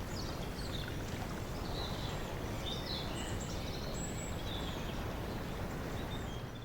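Outdoor nature ambience: a steady rushing noise with scattered high, brief chirps, birds calling over it.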